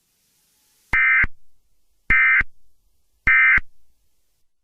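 Emergency Alert System end-of-message data bursts: three short, buzzy digital tones about a second apart, the coded signal that closes an alert broadcast.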